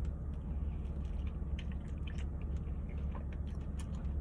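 Close-miked chewing of a steak and cheese sandwich: scattered soft, wet mouth clicks and smacks over a steady low hum.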